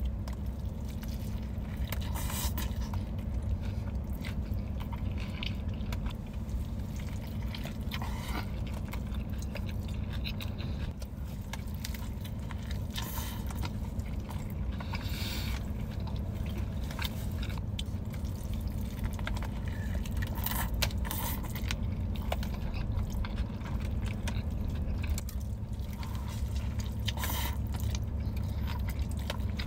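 Close-up wet eating sounds: bites into a sauce-drenched burger and messy chewing, with short sharp smacks scattered through, over a steady low hum.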